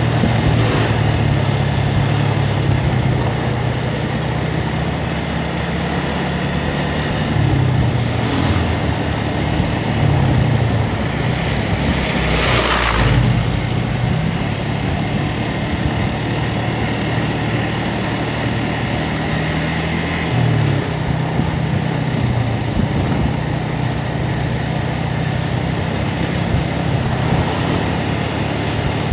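Yamaha Vixion single-cylinder motorcycle engine running under way over steady wind and road noise, its pitch dropping and climbing several times with gear changes and throttle. About halfway through there is a brief loud rush.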